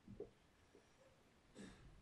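Near silence, with a few faint strokes of a marker writing on a whiteboard.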